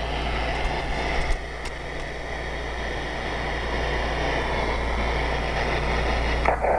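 Steady hiss of receiver static from a CB radio converted to the 20-meter ham band, with a low hum underneath and a couple of faint clicks about a second and a half in. The hiss loses its upper edge near the end.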